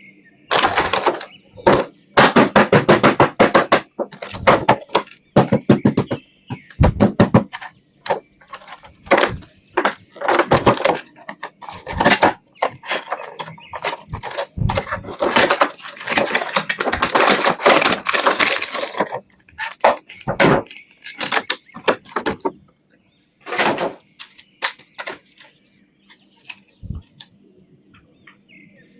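Toy action figures being unboxed by hand: plastic and cardboard packaging crinkling and crackling in irregular bursts, with clicks and knocks of plastic, quieter near the end.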